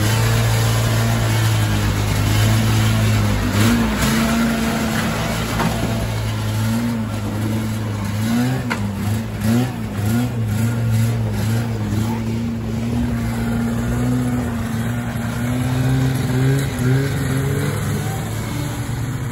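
Ski-Doo Formula Plus snowmobile's Rotax 583 two-stroke twin with Mikuni carburettors running, its revs rising and falling several times in the middle and again near the end.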